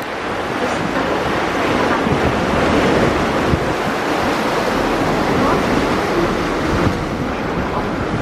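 Steady rushing noise of wind blowing over the microphone and water rushing past a moving Mersey ferry.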